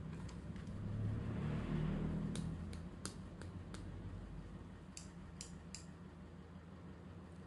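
Light plastic clicks from a pink plastic toy forceps being squeezed open and shut: about five quick clicks a few seconds in, then three more a little later. A low rumble of handling swells and fades before the clicks.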